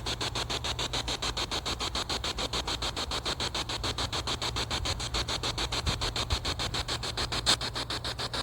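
Spirit box sweeping through radio frequencies: a steady hiss of radio static chopped into rapid, even pulses, about eight a second, with one louder click near the end.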